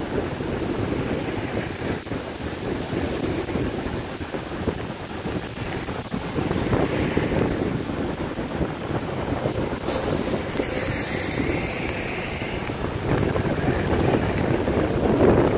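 Wind buffeting the phone's microphone over general road traffic noise on a wet road, with a high hiss for a couple of seconds about ten seconds in.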